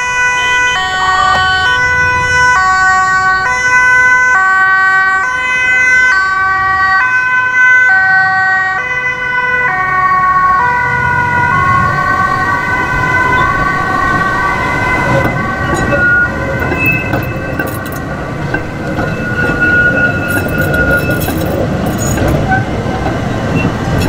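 Two-tone emergency-vehicle siren, alternating high and low pitches each under a second long. About ten seconds in it loses its steady steps, slides slightly in pitch and fades. The rolling wheel-and-rail noise of a passing articulated tram grows over it.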